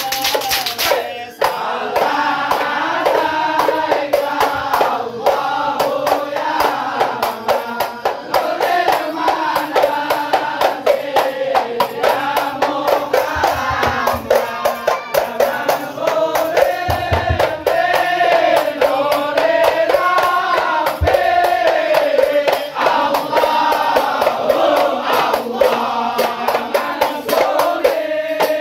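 Ishari hadrah: a group of men singing sholawat together to terbang frame drums and rhythmic hand clapping.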